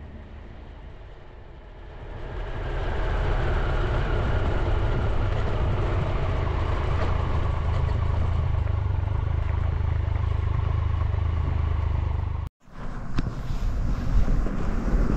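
Motorcycle riding slowly, its engine and rushing air making a steady rumble that swells in about two seconds in. It cuts off suddenly near the end, giving way to wind gusting on the microphone.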